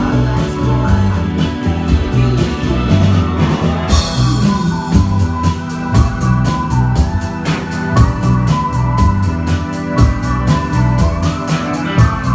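A live rock band playing: keyboard-organ chords over bass and drums with a steady, even beat, and a cymbal crash about four seconds in.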